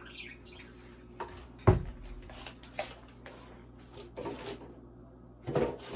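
Scattered light knocks and clicks of kitchen items being handled on a counter, with one sharper knock a little under two seconds in.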